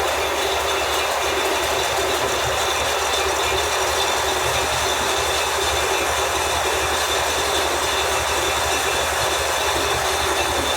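Lathe running while machining a shaft: a steady hiss with a thin high ringing tone over a fast, even low pulsing.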